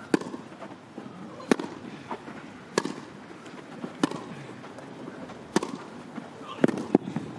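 Tennis rally: sharp pops of rackets striking the ball, back and forth about every second and a quarter, with two pops close together near the end.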